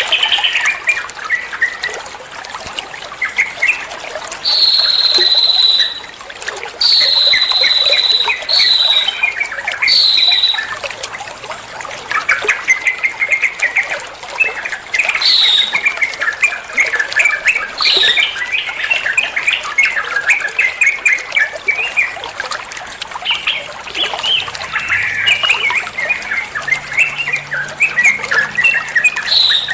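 Sooty-headed bulbul (trucuan) song: high, steady whistled notes, each falling away at its end and repeated several times, over continuous fast twittering chatter.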